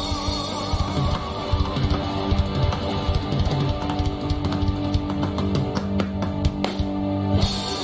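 Live rock band playing an instrumental passage, with electric guitar and drum kit. Near the end the drum hits stop and a chord rings on.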